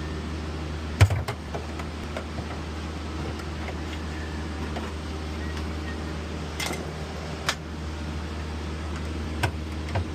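Steady low hum of running HVAC air-handling equipment, with a few sharp metal clanks as humidifier parts are worked loose. The loudest clank comes about a second in, and several more come near the end.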